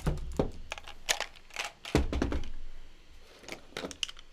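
Makeup brushes clattering as they are dumped and pushed around on a table: two dull thumps, one at the start and one about two seconds in, amid many light clicks of brush handles knocking together.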